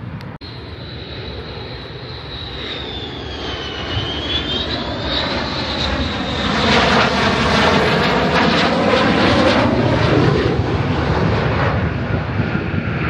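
Fighter jet passing low overhead on approach to land. Its engine roar builds to a peak past the middle and then eases, over a high whine that wavers in pitch.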